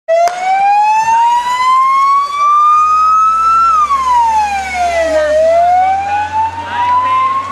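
Vehicle siren wailing in a slow rise and fall: its pitch climbs for about three and a half seconds, drops for under two, then climbs again. A low rumble runs underneath from about three seconds in.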